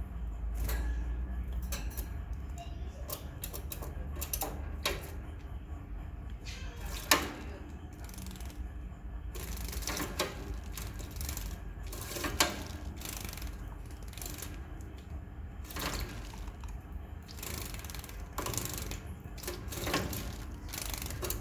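Java sparrows bathing in a water dish, irregular bursts of splashing and wing-flicked water, with two sharper splashes about seven and twelve seconds in.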